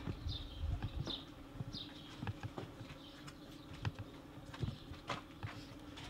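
Footsteps and scattered knocks on a concrete warehouse floor, with a few short high chirps in the first two seconds over a steady low hum.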